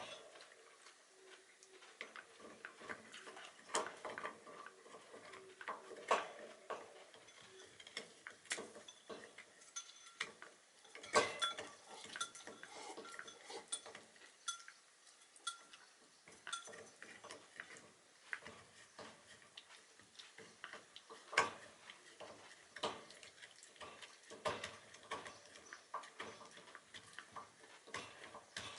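A Shiba Inu gnawing on a hard horse-hoof chew: irregular sharp clicks and cracks of teeth on hoof, a few louder cracks among them.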